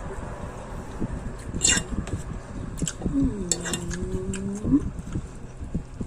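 Table noises of a meal: cutlery and dishes clinking and knocking, with one sharp clink about a second and a half in. Around the middle a person hums a long, steady 'mmm' over the food.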